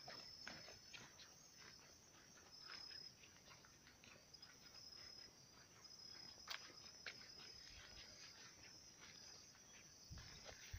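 Faint night insects, crickets, chirping steadily at a high pitch, with many light clicks scattered over them and one sharper click about six and a half seconds in.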